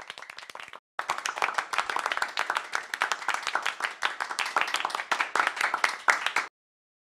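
Applause, many hands clapping. It breaks off for a moment just under a second in, resumes, and stops abruptly about six and a half seconds in.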